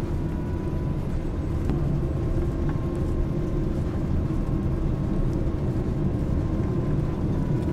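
Steady engine and air noise of an airliner heard from inside the cabin as the plane comes in low over the runway on landing.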